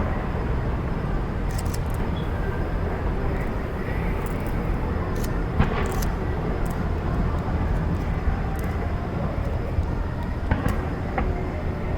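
Steady outdoor background noise with a strong low rumble and a few faint, short clicks.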